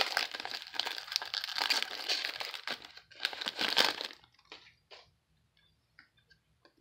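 Foil wrapper of a trading-card pack crinkling as it is opened by hand, for about four seconds, then only a few faint ticks.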